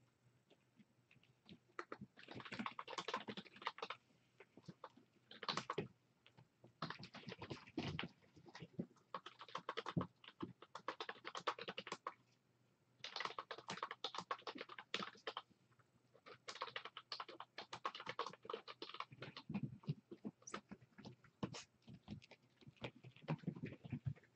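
Typing on a computer keyboard: quick runs of key clicks lasting a second or a few seconds each, broken by short pauses.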